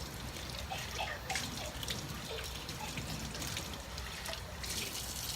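Running tap water at a kitchen sink with small clinks and knocks of dishes being hand-washed.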